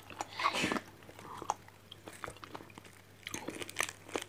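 Close-up sounds of a person chewing and biting food: wet mouth clicks and soft crunches. There is a short louder noise about half a second in, and a cluster of crunching clicks near the end.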